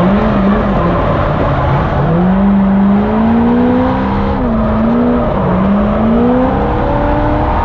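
Drift car's engine revving hard, its pitch climbing, dropping sharply and climbing again several times as the car is driven.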